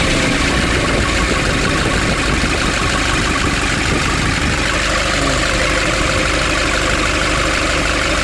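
2005 Nissan Urvan's diesel engine idling steadily while warming up after a diesel pump repair, running evenly with its diesel clatter.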